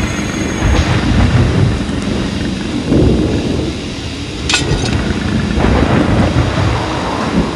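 Thunderstorm sound effect: continuous low thunder rumbling over a hiss of rain, with a sharp crack about four and a half seconds in.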